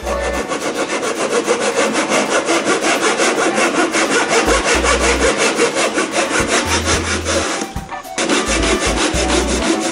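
Hand pull saw cutting through two cedar strips at once with rapid, even strokes, pausing briefly about eight seconds in before carrying on.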